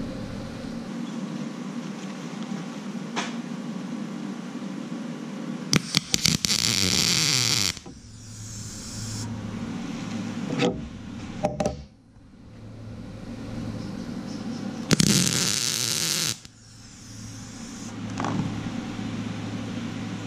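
Electric arc welding: two short welds, each about two seconds long, at about six seconds and again near fifteen seconds in. They are fixing a steel washer onto a pin as a shoulder. Between the welds there are a steady low hum and a few clicks from handling the parts.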